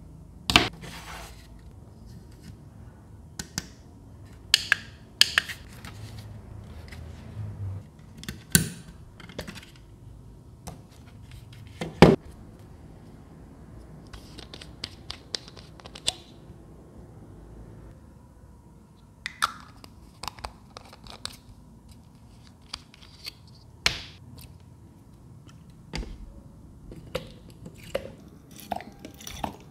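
Hands handling small plastic parts of a handheld spray fan (its USB charging cable, a clear plastic dropper bottle and the fan body) on a tabletop: scattered clicks, taps and short rustling scrapes, with the sharpest knock about twelve seconds in.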